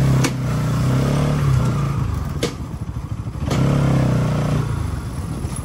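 Motorcycle engine running under throttle, easing off for about a second near the middle and then pulling again, with a couple of sharp knocks.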